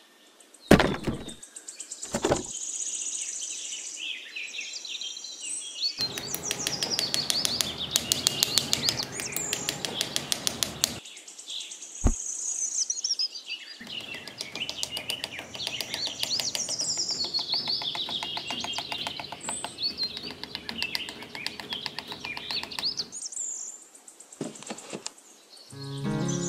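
Small birds chirping and tweeting over a steady background hiss. A few sharp taps are heard near the start and once about halfway, and a stretch of rapid ticking runs for several seconds in the middle.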